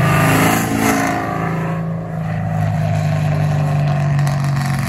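Cadillac CTS-V's supercharged 6.2-litre V8 accelerating hard from a roll. It revs up, shifts up about two seconds in, then keeps pulling away.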